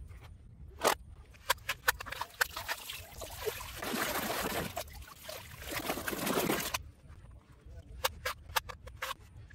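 A hand splashing and swishing through shallow muddy water for about three seconds in the middle. Before and after it come sharp clicks and knocks of plastic toy guns being handled.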